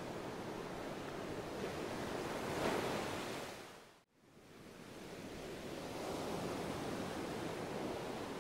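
A steady rushing noise, like surf, that swells a little, fades out to silence about four seconds in, then fades back in.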